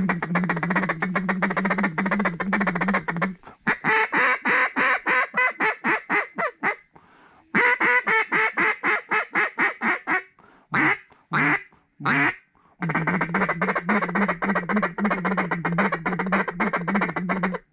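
Duck call blown hard to work ducks overhead. There are long runs of fast rolling chatter at the start and near the end, with strings of separate loud quacks in the middle and a few short notes about eleven to twelve seconds in.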